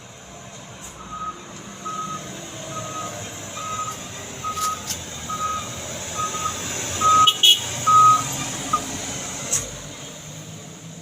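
Truck reversing alarm beeping at one steady pitch, about three beeps every two seconds, over a truck engine running low. The beeps stop about three-quarters of the way through, just after a few loud sharp knocks.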